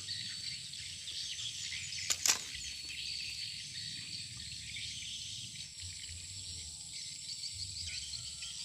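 Steady outdoor insect chorus with a constant high-pitched whine, and a brief double swish or click about two seconds in.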